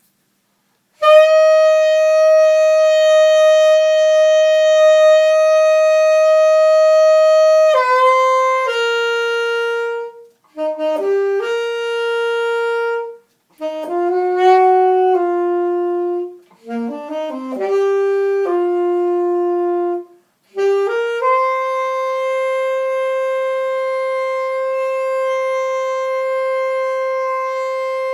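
Unaccompanied saxophone solo: a long held note, then a run of shorter notes broken by brief pauses, then another long held note.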